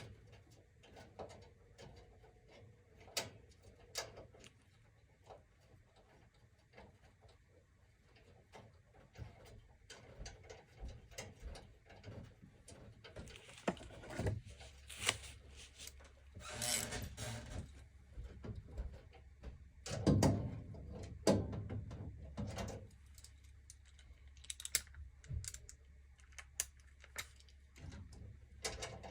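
Scattered clicks, taps and knocks of hands and a small tool on metal furnace parts while a flame sensor is being refitted, with a busier stretch of rustling and knocks about halfway through.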